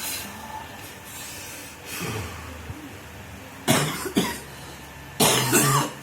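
A man coughing hard several times, with a low throaty sound about two seconds in and the loudest harsh coughs about four and five seconds in. It is the chronic cough he has had for two years.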